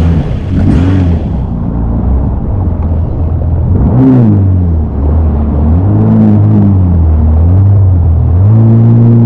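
Jet ski engine running, its pitch rising and falling several times with the throttle, then stepping up to a higher steady note near the end.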